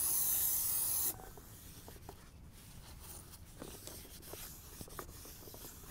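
Aerosol brake cleaner sprayed onto a new brake rotor, a steady hiss that cuts off sharply about a second in. Then faint rubbing with a few light clicks as a rag wipes the rotor clean.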